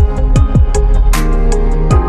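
Background music: an electronic track with a steady beat of deep kick drums and bright cymbal hits over sustained chords.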